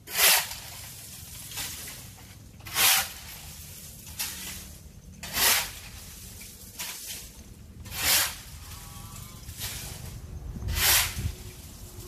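Rhythmic hissing close to the microphone: a loud burst about every two and a half seconds, each with a softer one halfway between, over a faint low hum.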